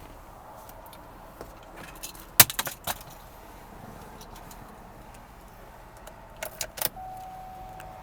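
Car keys jangling in two short clusters of sharp clicks, about two and a half seconds in and again near the end. A steady thin tone starts just before the end.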